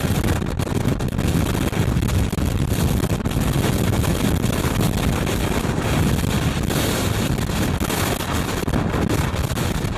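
Blizzard wind blowing hard against the microphone: a loud, steady rush of noise with a heavy low rumble.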